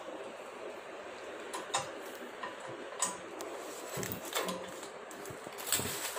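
Scattered metal clicks and knocks from a hand-pushed poultry litter raking machine being handled, its toothed steel rollers and frame rattling, over a steady hiss.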